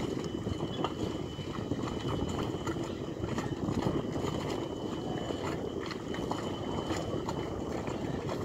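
Harbour ambience: a steady low rumble with scattered light knocks and clatter from crew working on the dock and boats, and a faint steady high whine.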